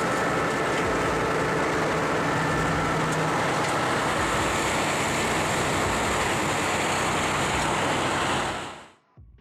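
Ural-375 truck's V8 engine running steadily under load while it plows snow, a dense continuous vehicle noise that fades out near the end.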